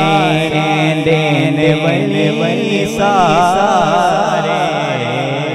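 A man singing a Punjabi naat into a microphone, drawing out a long wavering melismatic line over steady held low tones.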